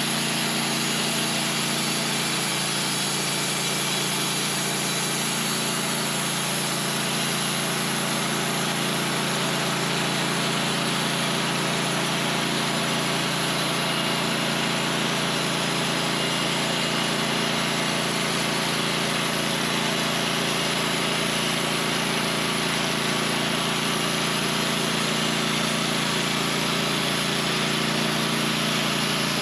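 Sawmill engine running steadily.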